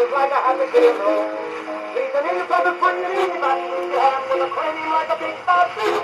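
Playback of an 1896 Berliner gramophone record: a man singing a tune, the sound thin and without bass.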